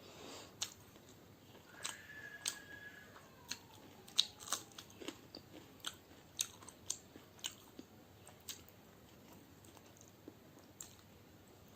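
Close-up chewing of egg biryani with raw onion, with a run of sharp, irregular crunches, thickest through the middle of the stretch and thinning out towards the end.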